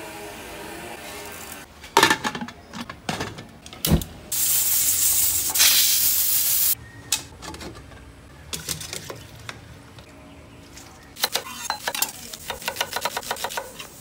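Kitchen work at a stainless pressure cooker: scattered clinks and knocks, then a loud, steady hiss for a couple of seconds. Near the end comes a knife chopping quickly and evenly on a wooden chopping block as an onion is sliced.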